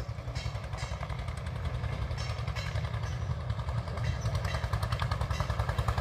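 An engine running at a steady idle: a low, evenly throbbing rumble.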